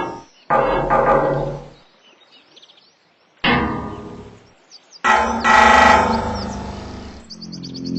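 Background music: three chords struck a couple of seconds apart, each ringing and fading away, with high chirping sounds over them.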